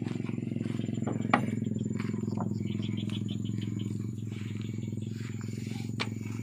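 An engine idling steadily at a low, even pitch, with two sharp clicks, one about a second in and one near the end.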